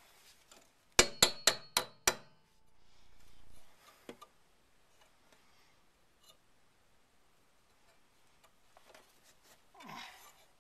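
Five quick, sharp metal-on-metal taps about a quarter second apart, each with a brief ringing note, made while working the steel brake line back into place at its strut bracket. Fainter handling clicks follow.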